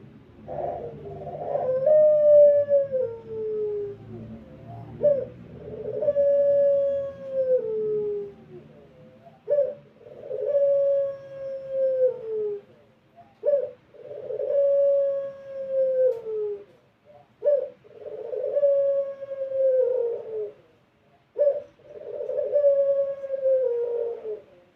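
A puter pelung (domesticated turtle dove) cooing over and over: six long drawn-out coos about four seconds apart, each a short note followed by a long held tone that drops in pitch at the end.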